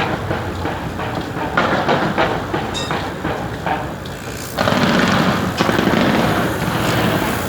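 Fireworks going off: a rapid series of sharp bangs, becoming a louder, denser, continuous rumble of bursts about halfway through.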